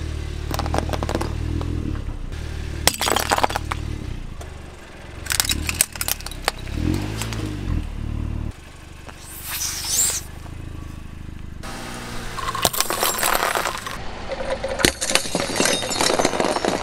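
A car tyre rolling slowly over small objects and crushing them one after another, with repeated sharp cracking and crunching: sticks of chalk snapping, plastic toys breaking, and the glass tubes of a compact fluorescent bulb shattering near the end. The car's engine idles with a low hum underneath.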